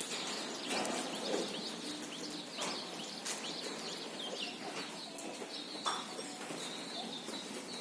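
Birds chirping: many short, high chirps in quick succession over a noisy background, with scattered clicks and knocks.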